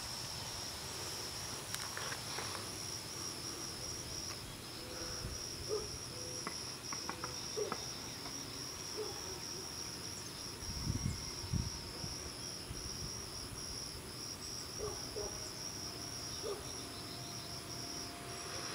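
Insects trilling steadily, a rapid pulsing high note that carries on unbroken. A few faint clicks and a couple of soft low thumps come a little past the middle.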